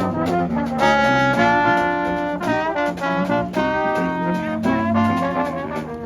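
Brass music with trumpets and trombones playing a lively, jazzy tune in held chords.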